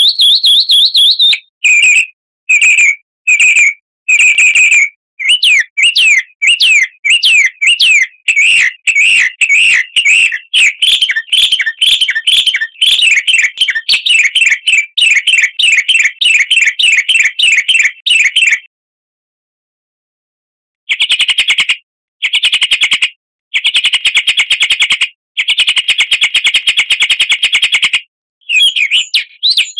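Songbird singing loudly in a fast chain of high, rapidly repeated chirps and trills, the bird-song 'pancingan' lure recording used to set caged birds singing. It breaks off for about two seconds about two-thirds through, then resumes in quick trilled bursts.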